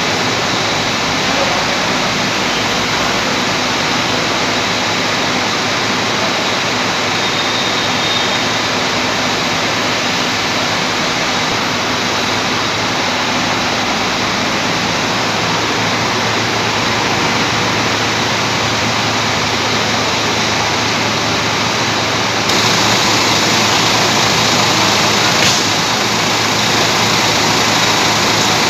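Steady, loud rushing hum of idling diesel bus engines and their air-conditioning in the bus garage, with a faint high whine running through it. The noise jumps suddenly louder and brighter about six seconds before the end.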